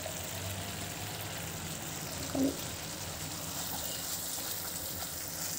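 Tomato-onion masala frying in a pan with a soft, steady sizzle as spices are stirred into it with a wooden spatula. One brief louder knock about two and a half seconds in.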